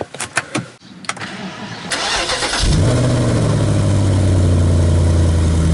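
BMW 650i's V8 engine being started: a few clicks, a short stretch of cranking, then the engine catches nearly three seconds in and runs steadily.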